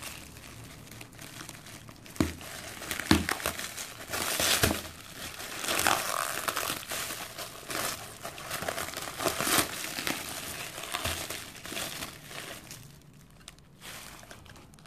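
Clear plastic wrap around a cardboard box crinkling and rustling as it is handled and pulled at, with irregular sharp crackles; busiest in the middle and quieter near the end.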